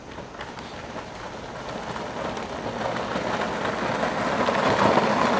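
A small pedal go-kart's hard wheels rolling over a rough path: a gritty rumble and rattle that grows steadily louder as the kart comes closer.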